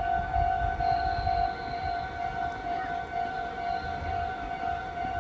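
Railway level-crossing warning bell ringing, a steady repeating electronic tone, over a low rumble.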